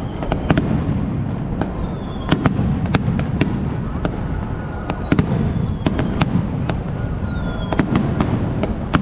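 Aerial fireworks display: a continuous rumble of shell bursts with many sharp cracks throughout and faint whistling tones now and then.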